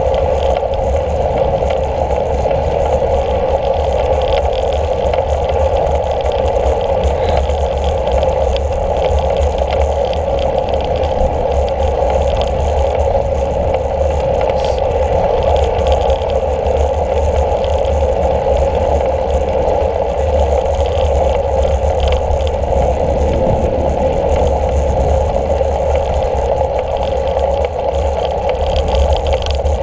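Steady wind and road noise from a road bicycle in motion, picked up by a camera mounted on the handlebars, with faint small ticks and rattles.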